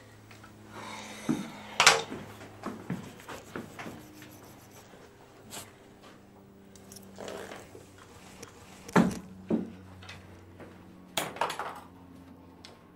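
Handling noises in a small room: scattered knocks, clicks and rustles as someone moves about handling clothes and furniture. The sharpest knocks come about two seconds in, about nine seconds in and around eleven seconds in, over a low steady hum.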